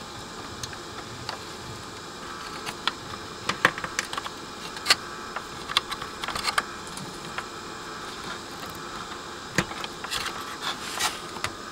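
Irregular small clicks and taps of a plastic multi-pin plug and its flat wiring lead being handled and worked onto a connector header on an amplifier's circuit board.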